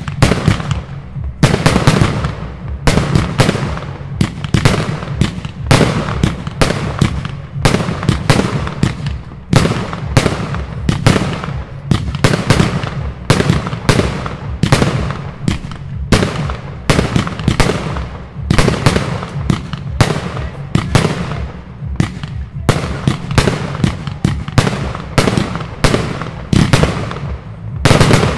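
Triplex TXB064 Szok firework battery (cake) firing a steady run of sharp shots, about two a second, which stops near the end.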